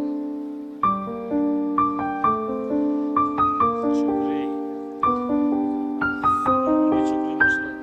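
Background piano music: single notes and chords struck at an easy pace, each ringing on and fading.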